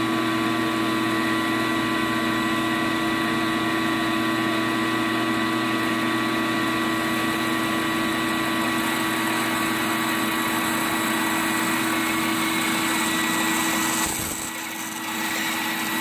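Bandsaw running steadily, its motor and blade giving an even hum with a few fixed tones, briefly dipping in level near the end.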